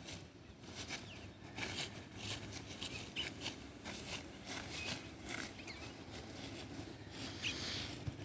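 Rice stalks being cut by hand with a sickle: a run of crisp cutting and rustling strokes, roughly two a second.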